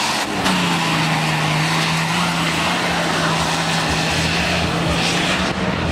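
Off-road 4x4 race car's engine running hard at steady revs, its pitch stepping down slightly about half a second in, over a steady rush of noise.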